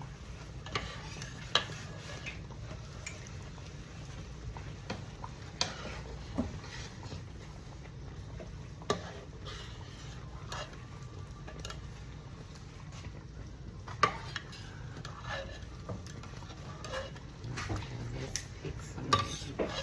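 Kitchen utensils stirring and clinking against cookware, with scattered sharp knocks every second or few, over a steady low hum.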